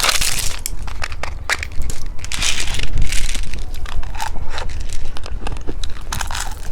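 Close-up crunching of candy being bitten and chewed, with crinkling of a plastic wrapper: a dense, irregular run of sharp crunches and crackles.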